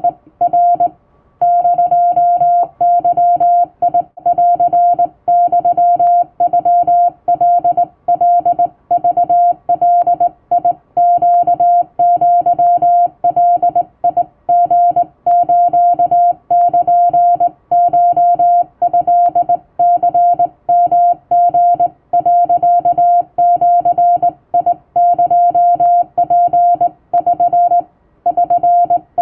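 Hand-keyed Japanese (Wabun) Morse code: a single steady beep switched on and off in a running string of dots and dashes, with short gaps between characters and a longer pause about a second in and again near the end.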